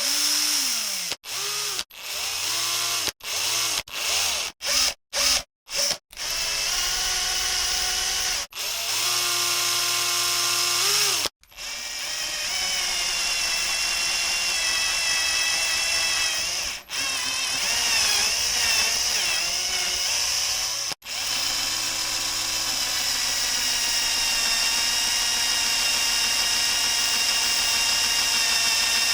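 Power tool's electric motor, switched on and off in a quick series of short bursts over the first six seconds, then run in long stretches of several seconds with its pitch shifting slightly.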